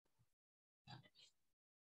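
Near silence, with two faint brief sounds, one at the start and one about a second in.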